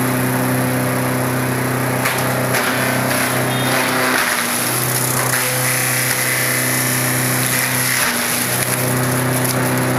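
Single-shaft cardboard shredder, model CS 5, running under load with a steady machine hum while corrugated boxes are fed in and torn up. Bursts of ripping and crunching come as the cardboard is cut, and the hum dips briefly about four and eight seconds in.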